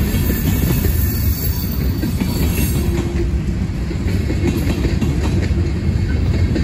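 Covered hopper cars and boxcars of a Norfolk Southern freight train rolling past: a steady low rumble of steel wheels on rail, with light clicking over the rail joints.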